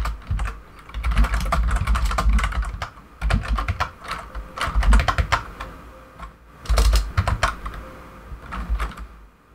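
Computer keyboard typing: quick runs of keystrokes in several bursts, with short pauses between them as a terminal command is entered.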